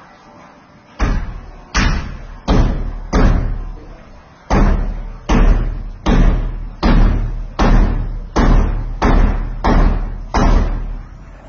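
Heavy hammer blows, thirteen strikes at a steady pace of about one and a half a second, with a short pause after the fourth. Each blow lands with a deep thud that rings on briefly.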